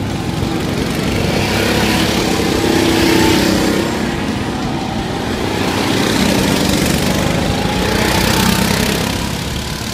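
Small go-kart engines running as several karts lap the track. The engine noise swells as karts pass close by, loudest about three seconds in and again near the end, with faint rising and falling engine pitch as drivers throttle through the corners.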